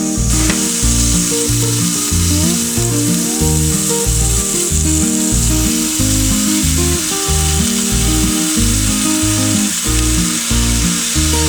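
Food sizzling in a hot frying pan, starting suddenly right at the beginning and continuing steadily, with background music underneath.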